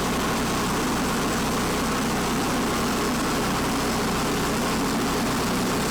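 Sawmill engine running at a steady, unchanging speed.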